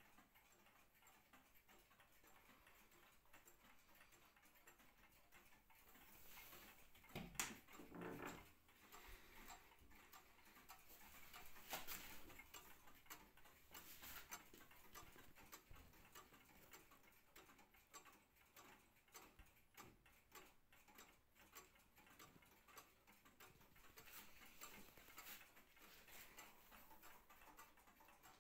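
1930s Gustav Becker pendulum wall clock ticking faintly and evenly, with a brief louder bump about seven seconds in.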